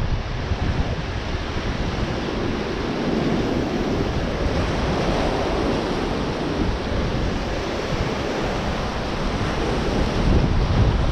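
Ocean surf breaking and washing among rocks, with wind buffeting the microphone in a low, fluttering rumble. The wash swells a little in the middle.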